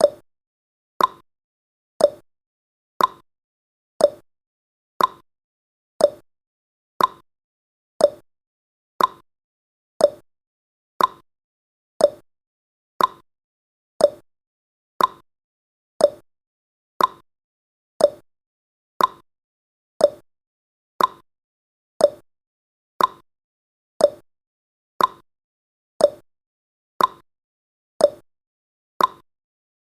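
Clock tick-tock sound effect of a countdown timer: one short, sharp tick each second, alternating between a lower and a higher pitch.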